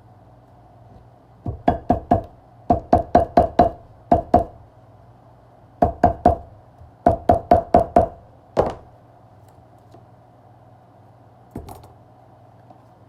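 Quick runs of sharp knocks, each with a short ringing tone: groups of two to five strikes about a fifth of a second apart, then one more strike and a fainter one near the end, over a faint steady hum.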